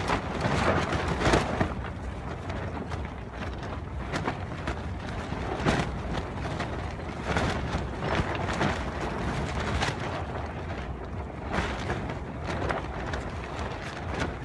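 Dust-storm wind buffeting a Marmot Thor 3P tent, heard from inside: a steady low rumble of wind with irregular surges, and dirt striking the tent walls like handfuls of dirt being thrown on its side.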